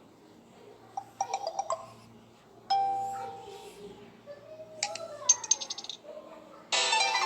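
Samsung Galaxy J2 Core notification tones played one after another: four short chimes and jingles, each a quick run of bright tones, starting about 1, 3, 5 and 7 seconds in. The last is the loudest.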